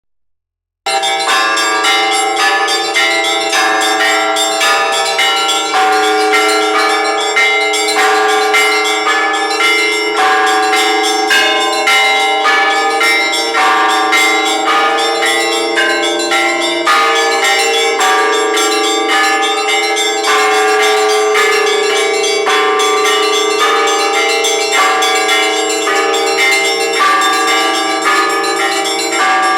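Orthodox church bells rung by a bell ringer: several bells of different pitches struck in a quick, steady rhythm, starting about a second in.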